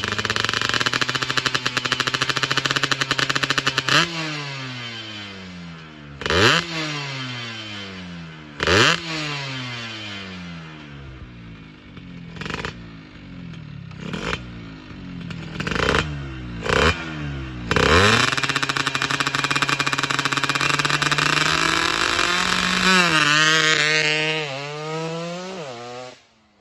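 Yamaha F1ZR two-stroke single, built out to about 125cc with a PWK 28 carburettor, being revved: held high for a few seconds, then a run of quick throttle blips that each fall away, then held high again for several seconds before the revs drop and the sound falls away near the end.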